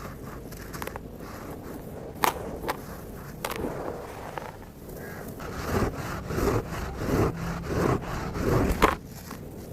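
Dry red dirt and stony, coal-like chunks crunching and crumbling with a gritty texture. A couple of sharp cracks come early, then from about halfway a run of crunches about every two-thirds of a second, the loudest just before the end.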